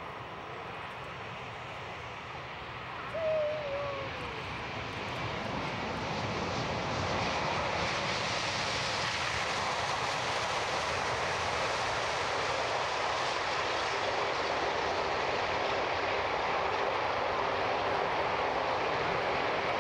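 Airbus A380's four Rolls-Royce Trent 900 turbofans as it lands and rolls out on the runway: a steady jet rumble and hiss that grows louder about six seconds in and stays loud. A brief falling whistle sounds about three seconds in.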